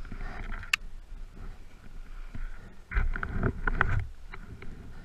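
A fallen rider moving in the snow: crunching snow and jacket fabric rubbing and knocking against the body-mounted camera, with a sharp click under a second in. The loudest stretch comes about three seconds in and lasts about a second, as the gloved hands push into the snow.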